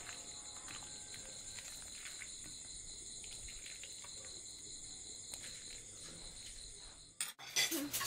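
Steady high-pitched chirring of insects, with faint light clinks of a metal ladle against a ceramic soup bowl. About seven seconds in it cuts off abruptly and a louder clatter starts.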